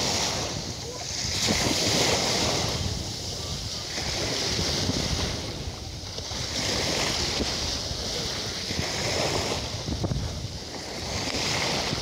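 Small sea waves lapping in the shallows at the shoreline, the wash swelling and easing about every two seconds, with wind rumbling on the microphone.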